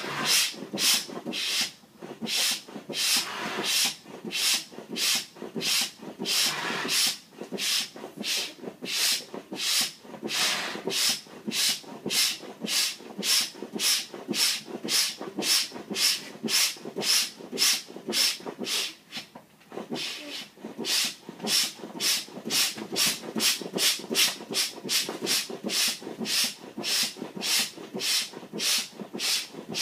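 High-volume foot pump worked steadily at about two strokes a second, each stroke a short hiss of air forced through the hose into a pack raft's valve. A longer rush of air runs under the strokes for a few seconds near the start.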